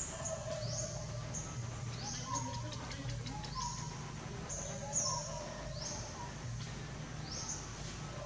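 Forest ambience: short, high-pitched chirps that each rise sharply, repeated about once a second, over a steady low background hum, with a few brief lower notes and a quick patter of faint clicks near the middle.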